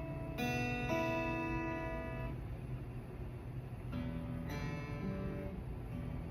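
Acoustic guitar chords strummed slowly. One chord sounds just after the start and rings out, fading over about two seconds. After a quieter stretch, another chord comes in about four seconds in, with more notes added half a second later.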